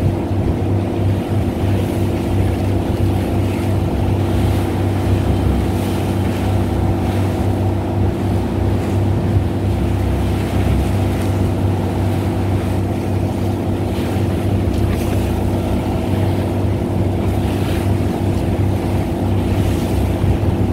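A fishing boat's engine running steadily at an even speed, with a constant hum throughout.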